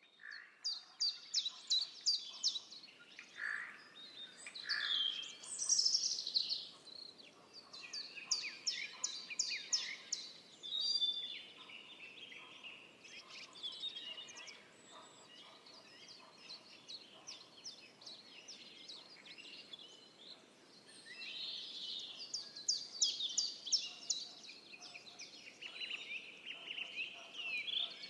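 Several songbirds singing at once in woodland, with quick high trills and chirps overlapping. The song is busiest in the first ten seconds and again in the last third, thinner in between.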